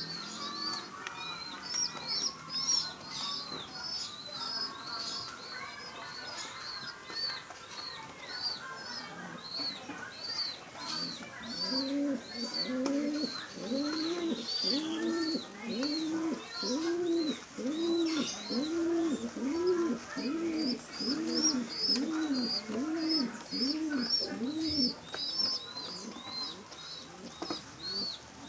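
Baby pigeon (squab) cheeping in short, high, rapid peeps, two to three a second, begging for food. Through the middle a lower, coo-like call repeats regularly, about one and a half a second.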